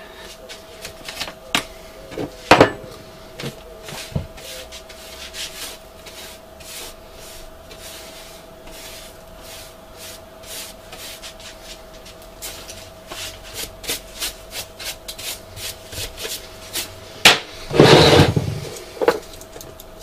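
Hand brush sweeping metal bits and debris across a wooden workbench: many short scratchy strokes with the odd knock, and a louder clatter near the end.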